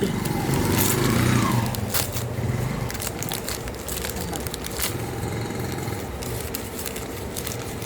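Paper crinkling and crackling as small wrapped gifts are handled and unwrapped, in many short irregular crackles. A low hum runs under it for the first few seconds.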